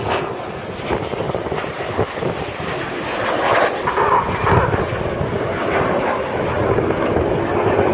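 Jet noise from a Red Arrows BAE Hawk T1 flying a display: a steady rushing noise from its Adour turbofan that grows a little louder after the first couple of seconds.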